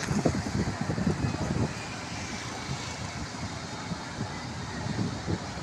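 Wind buffeting the microphone over a steady outdoor rumble, louder in the first second and a half and then even.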